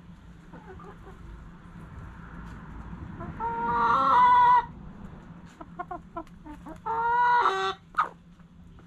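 Domestic chickens calling. One loud, drawn-out call lasting over a second comes about a third of the way in, a second shorter one about three-quarters through, and a short sharp call near the end, with softer clucks between.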